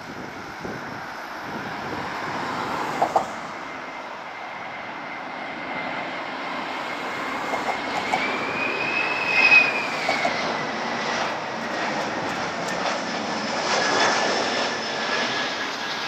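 Airbus A321 jet engines at approach power on final approach: a steady roar with a whining tone that rises and falls in pitch around the middle, growing louder toward the end.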